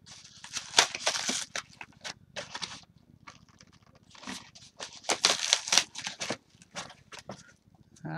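Cardboard mailer being torn open and handled: crackling and rustling of cardboard and the paper packing slip, with light clicks and knocks as the shrink-wrapped DVD case comes out. Loudest in two bouts, about a second in and around five seconds in.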